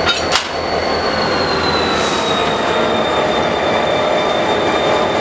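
Diesel locomotive running and easing away from the coaches after being uncoupled, with a steady high-pitched squeal over the engine noise. Two sharp metallic clicks come right at the start.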